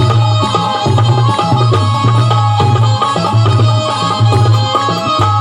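Instrumental Marathi devotional folk music: fast hand-drum strokes over a held, sustained melody line, with a deep bass note pulsing on and off.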